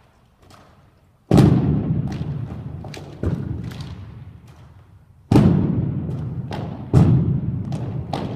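Exhibition rifle drill: three loud impacts on a hard floor, about a second in, near five seconds and again a second and a half later, each echoing on for a couple of seconds in a large hall. Lighter slaps and clicks of rifles being handled fall between them.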